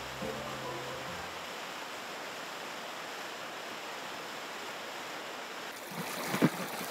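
Steady rush of seawater pouring and foaming over shoreline rocks. A single sharp knock comes near the end.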